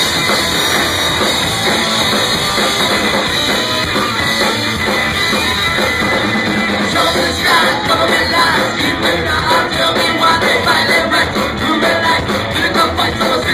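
Ska-punk band playing live and loud: electric guitars, bass and drum kit, with singing. The drum hits come through more sharply from about halfway on.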